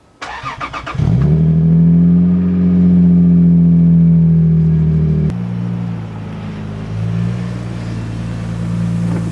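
Lexus IS300's 2JZ-GE inline-six cranked by the starter and catching after about a second, rising to a high idle that holds steady. About five seconds in it drops suddenly to a lower idle.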